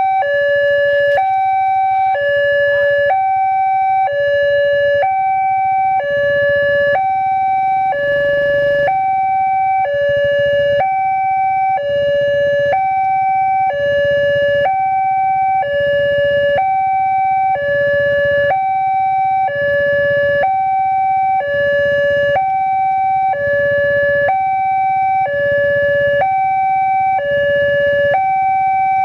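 Railway level-crossing warning siren sounding continuously, a high and a low tone alternating evenly, each held about half a second: the crossing's alarm while the barriers are down for an approaching train.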